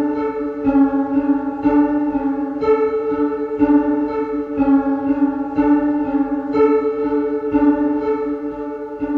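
Synthesizer playing a looping pattern of sustained keyboard-like notes, a new note about once a second, fading away near the end.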